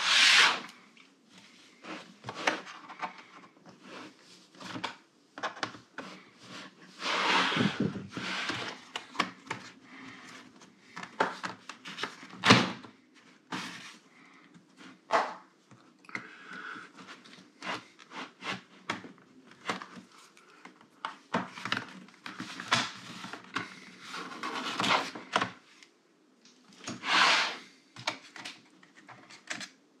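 Plastic bottom cover of a Dell G15 laptop being pried loose with a plastic pry wedge: irregular clicks and snaps as the case clips let go, mixed with plastic scraping and rubbing and a few longer scrapes as the laptop is handled on the desk.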